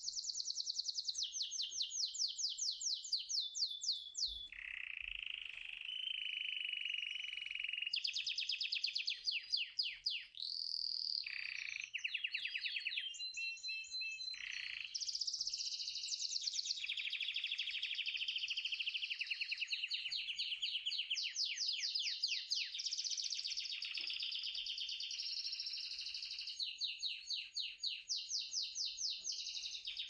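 A songbird singing one long continuous song of rapid trills. Each trill is repeated for a second or two before it switches to a new trill at a different pitch.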